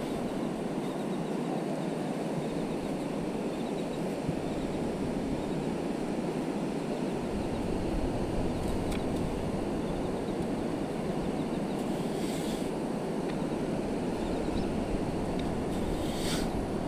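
Steady wind and ocean surf noise, with wind rumbling on the microphone from about seven seconds in. A few faint brief scrapes stand out now and then.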